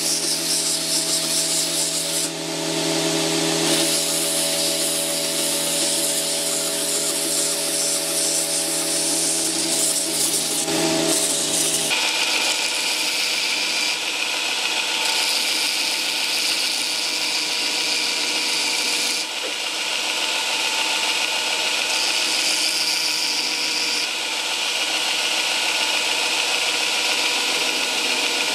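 Belt grinder running with its abrasive belt grinding a wooden knife handle to shape: a steady motor hum under the hiss of the belt rubbing the wood. The hum changes abruptly a few times, most clearly about twelve seconds in.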